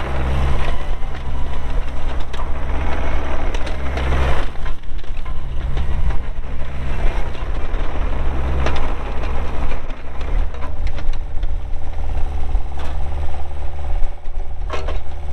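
Bobcat 430 mini excavator's Kubota diesel engine running steadily while the hydraulics work, with the bucket crunching and scraping through material for the first half or so, then a steadier hydraulic whine over the engine.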